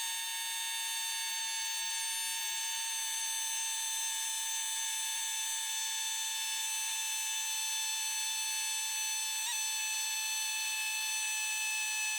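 Chicago Pneumatic CP-9361 pneumatic air scribe running with its stylus against mica-covered rock: a steady, high-pitched buzz that holds one pitch throughout.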